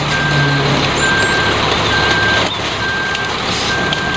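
Backup alarm on a front-discharge concrete mixer truck beeping steadily, about once a second, over the truck's engine running.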